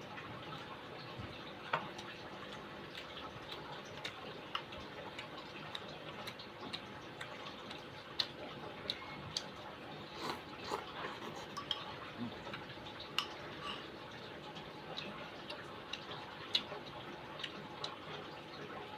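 Close-up eating sounds of soto mie soup with crispy tofu: irregular sharp clicks and wet smacks over a steady faint hum.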